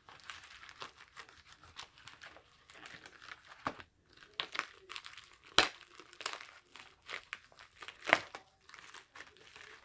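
Packaging being crinkled, crumpled and torn by hand as a tightly wrapped mail package is worked open, a steady irregular crackling with a few sharper, louder cracks or rips, the loudest about halfway through and another a couple of seconds later.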